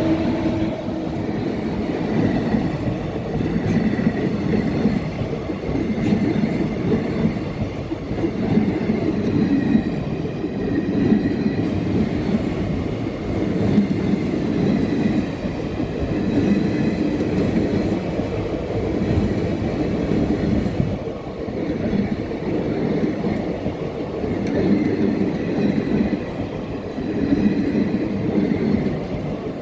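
Express train's coaches rolling past on the rails with a steady rumble and clickety-clack, the sound swelling and fading every two to three seconds as each coach goes by.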